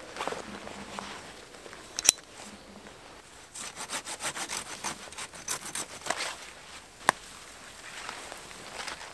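Leafy conifer branches rustling and scraping as they are handled and dragged, with a flurry of rapid scrapes in the middle. Two sharp cracks, like twigs snapping, come about two seconds in and about seven seconds in; the first is the loudest.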